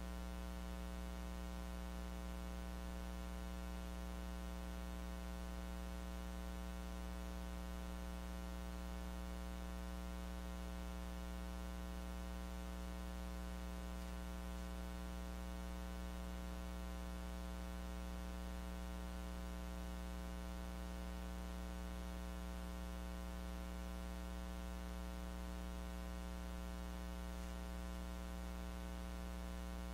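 Steady electrical hum with many overtones over a faint hiss, unchanging: the recording picked up no sound from the room.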